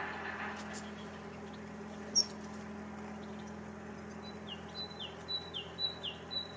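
A small songbird calling a run of about seven short high notes, each slurring downward, about three or four a second, in the second half. A single sharp click about two seconds in, over a steady low hum.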